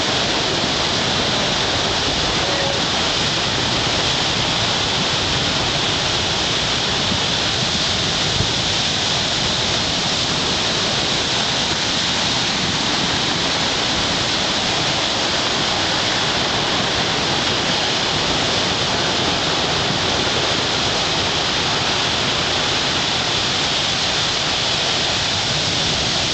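Heavy hurricane swell breaking over rock ledges: a steady, unbroken roar of white water with no single crash standing out.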